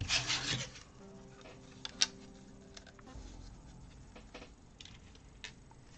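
BlueBrixx plastic building bricks being handled: a short burst of scraping and rubbing of plastic pieces at the start, then a sharp click about two seconds in and a few fainter clicks as bricks are fitted together.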